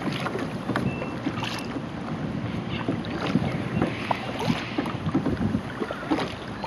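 Water slapping and splashing against a kayak hull as it is paddled, with the paddle dipping and dripping in many small splashes, and wind on the microphone.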